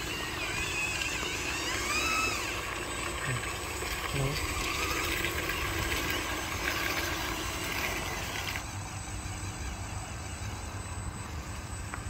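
Whining of the small electric motors on a radio-controlled Mitsubishi Canter dump truck model as it works and tips its bed. The higher part of the sound cuts off about two-thirds of the way through.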